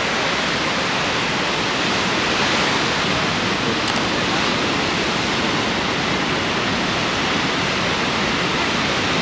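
Steady, even rush of ocean surf washing onto a sandy beach.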